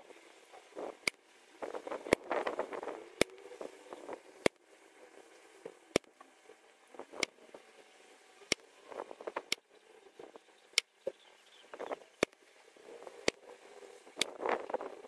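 Weihrauch HW57 .22 spring-piston air rifle being shot and handled: sharp clicks and cracks about once a second, the loudest two about two seconds apart, with short metallic rattling stretches between them.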